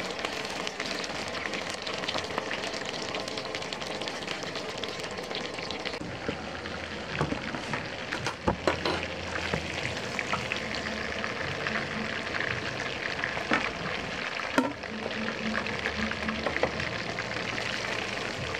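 Food sizzling and crackling in a hot pan, with a few sharp utensil knocks about seven to nine seconds in and again near fifteen seconds.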